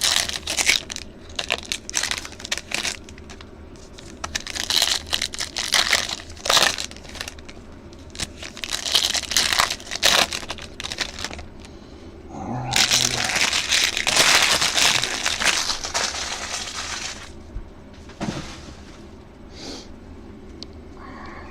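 Foil trading-card pack wrappers being torn open and crinkled. There is a string of short crackling rustles, then a longer stretch of continuous crinkling a little past halfway.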